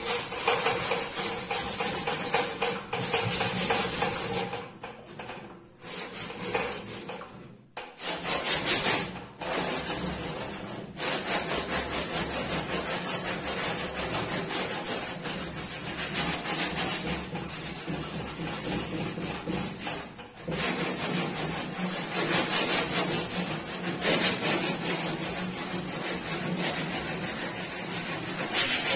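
Sandpaper rubbed by hand back and forth over a wooden cabinet's surface in quick rasping strokes, pausing briefly a few times: the wood is being sanded back before painting.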